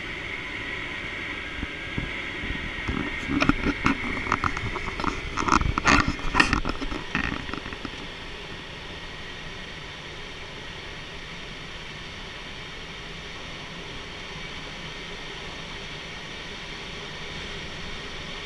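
Steady rush of airflow inside a glider cockpit in flight. From about three to seven seconds in there is a cluster of loud knocks and rattles, after which only the even air noise remains.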